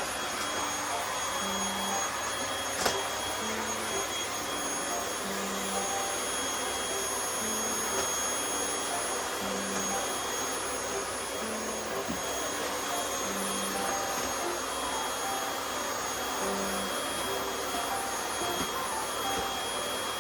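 Household vacuum cleaner running steadily, a continuous rushing noise with a high motor whine, and one sharp knock about three seconds in.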